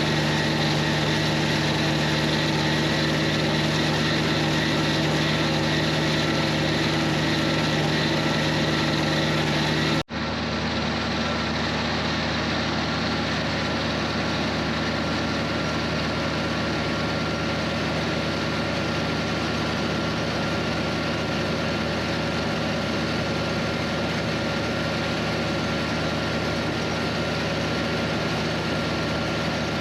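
John Deere 3020 tractor's four-cylinder engine running steadily under load while pulling a Bush Hog disc mower through hay. About a third of the way through the sound cuts out for an instant and resumes a little duller.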